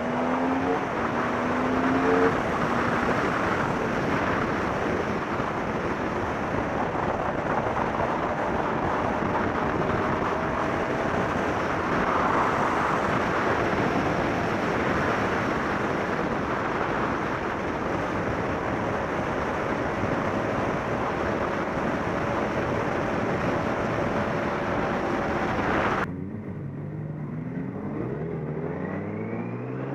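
Heavy wind rush over a motorcycle-mounted camera at track speed, with the Yamaha R6's inline-four engine faintly audible beneath it. A few seconds before the end the wind noise drops away suddenly and the engine comes through plainly, rising in pitch as it accelerates.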